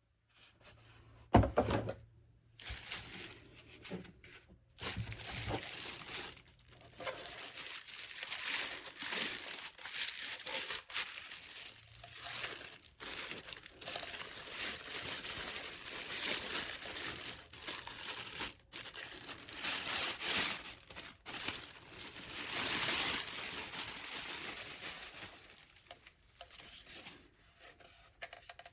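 Rustling and crinkling handling noise that rises and falls irregularly, with a single sharp thunk about a second in.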